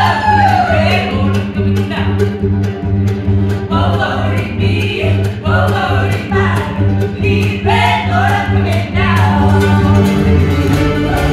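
Acoustic string band playing live: fiddle, cello and upright bass over a steady, evenly pulsing bass line, with voices singing.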